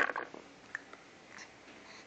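A dog hiccuping: one short, sharp hiccup with a gulping catch at the start, followed by a couple of faint clicks.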